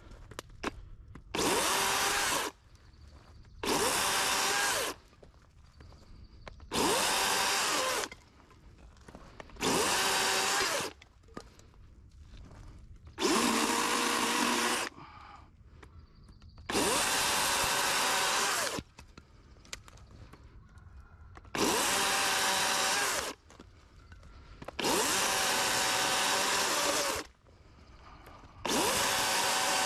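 DeWalt cordless chainsaw cutting through small branches in short bursts, about nine cuts of a second or two each, the motor stopping completely between cuts.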